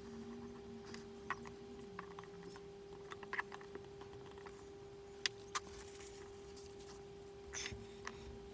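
Scattered light metallic clicks and clinks from pliers and small threaded pins against steel press plates as the pins are screwed in by hand, over a faint steady hum.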